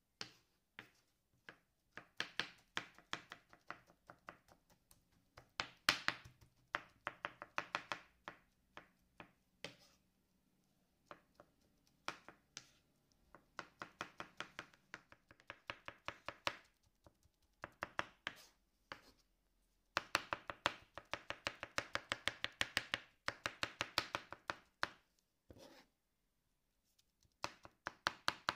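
Large kitchen knife chopping soft roasted, peeled eggplant on a wooden cutting board, in quick runs of rapid knocks with short pauses between them, mincing the flesh to a mash.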